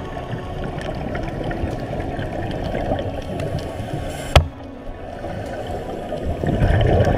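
Underwater sound picked up by a dive camera: a steady muffled water hiss with many faint scattered clicks and crackles, one sharp click a little after halfway, and a louder rush of water noise near the end.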